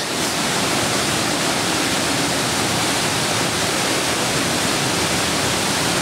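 A fast, heavy waterfall plunging into a pool inside a rock cave chamber: a steady, even rush of falling water.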